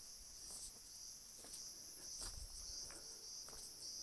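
Insect chorus chirring steadily and high-pitched in the forest, with a few faint clicks now and then.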